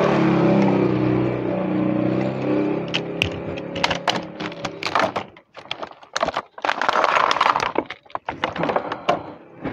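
A vehicle engine hums past and fades out after about three seconds, followed by irregular crackling and crunching clicks close by, densest about seven seconds in.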